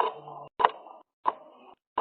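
Sharp knocks or taps repeating about every two-thirds of a second, each followed by a brief rattle.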